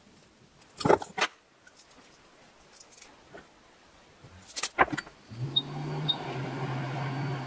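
Metal clicks as a memory chip is fitted into a reballing jig with tweezers, then a clatter as the jig is set down. About five seconds in, a hot-air rework station starts blowing with a steady hiss and low hum, and two short beeps sound, as the chip is heated to reflow new solder balls.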